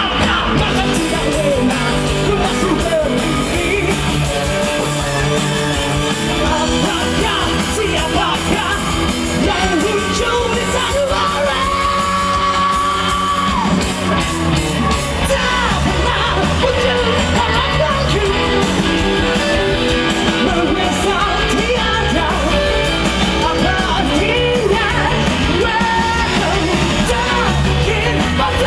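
A rock band playing, with singing and yelled vocals over the music; a long note is held near the middle.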